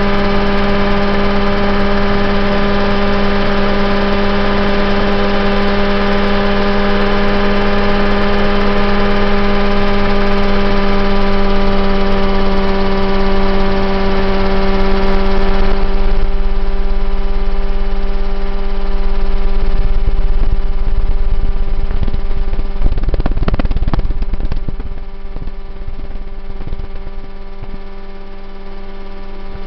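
Mosquito ultralight helicopter's engine and rotor droning steadily in flight, a strong, even hum. About 24 seconds in, after a brief rushing flutter, the sound drops noticeably quieter.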